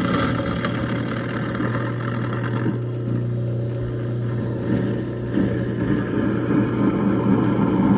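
Kitchen sink garbage disposal running with hot tap water flowing into it, churning a foaming cleaner pod: a steady, loud motor hum under the rush of water.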